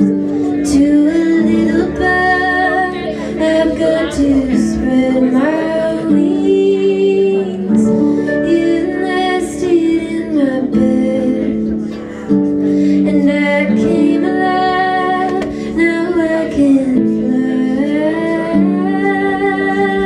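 Live song performance: harp and acoustic guitar playing together, with a woman singing.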